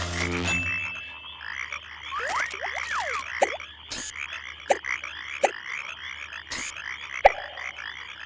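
Frog chorus croaking steadily in a cartoon night-pond soundscape, with faint high insect chirps above and a short falling blip about every second.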